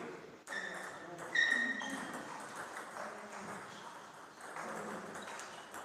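Celluloid-type table tennis balls striking paddle and table: two sharp, short pings with a brief ring, the first just under a second in and the second about a second later, over faint hall murmur.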